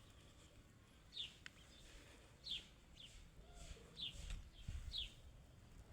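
A small bird calling faintly, giving short high chirps that slide down in pitch, about one a second.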